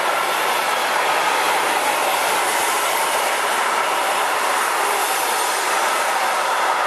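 Freight train of covered sliding-wall wagons rolling past: a loud, steady rush of steel wheels on rail.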